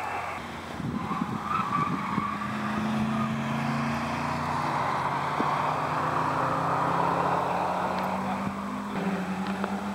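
Subaru Impreza 2.5i's flat-four engine pulling the car around a circuit, heard from trackside, a steady engine note that steps up in pitch near the end.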